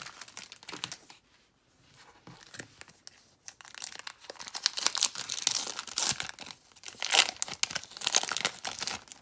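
Foil wrapper of a Bowman Draft baseball card pack crinkling and tearing as it is pulled open by hand. The crackling starts about three and a half seconds in and comes in dense, uneven bursts.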